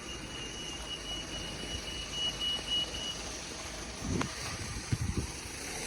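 Street traffic: a low vehicle rumble, with a thin steady high-pitched electronic tone that stops about three seconds in.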